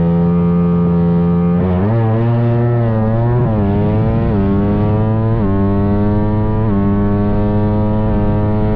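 Drag-race motorcycle engine held at high revs, then launched: the pitch drops about a second and a half in, then repeatedly climbs and falls back sharply as it accelerates hard through several gear changes.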